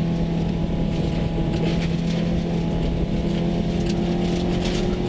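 Subaru rally car's engine heard from inside the cabin, holding steady high revs as the car runs at speed down a straight gravel road, with steady road and gravel noise beneath it.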